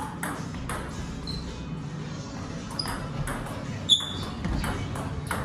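Table tennis ball clicking on bats and table: a couple of sparse clicks, then a rally of quicker hits from about three seconds in, the sharpest near four seconds.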